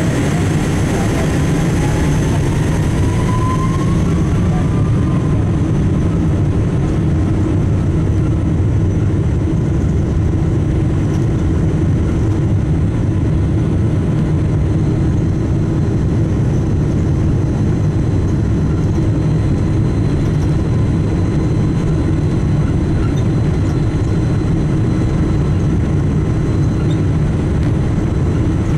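Boeing 777-200ER's Rolls-Royce Trent engines running at low thrust, heard from inside the cabin as a steady, loud rumble while the jet rolls on the ground. A whine rises in pitch over the first few seconds, then the sound holds steady.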